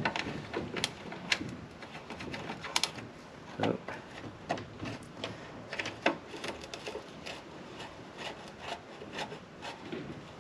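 A screwdriver working the screws of a motorcycle's rear lamp lens, with irregular small clicks, taps and scrapes of metal on plastic.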